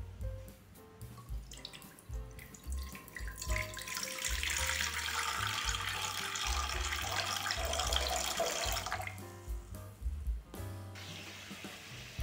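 A stream of water poured into a nonstick frying pan, splashing steadily for about five seconds before it stops, over background music.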